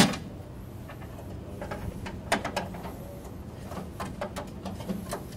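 Small clicks and taps of a screwdriver and wire against a metal breaker panel while a neutral wire is being fastened to the neutral bar. A sharp click comes right at the start, with a cluster of quick taps a little after two seconds and more around four seconds, over a faint steady low hum.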